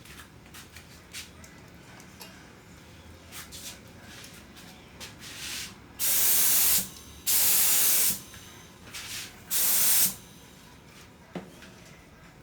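Aerosol spray paint can sprayed in three short hissing bursts, each under a second long, with a few faint small clicks and rustles between them.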